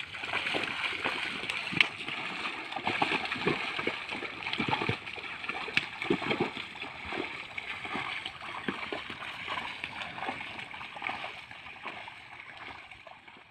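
Muddy water sloshing and splashing as a pair of water buffalo wade through a flooded paddy, dragging a wooden leveling board that a man stands on, with irregular splashes from hooves and board. It fades out near the end.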